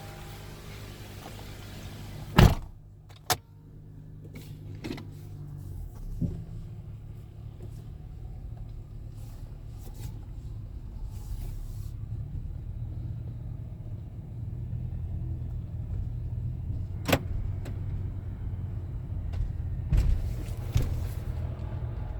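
A 2014 Honda Accord's engine running with a steady low hum, broken by several sharp knocks or clicks: two loud ones a few seconds in, and more later on.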